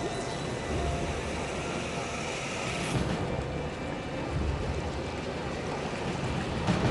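Water churning and bubbling up in a rock pool: a steady rushing noise with a few low rumbles.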